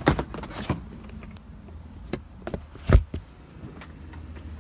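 Handling noise from a rolled-up rubber cargo liner: scattered rustles and light knocks, with one dull thump about three seconds in.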